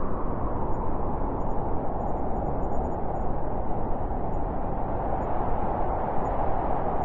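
Blizzard wind blowing steadily as an even, rushing noise with no lulls, growing a little brighter in the second half.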